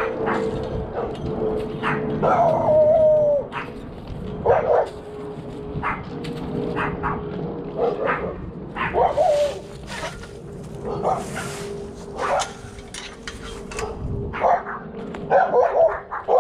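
A dog barking and yipping in short, irregular bursts, with one longer, drawn-out yelp about two seconds in and a quick run of barks near the end.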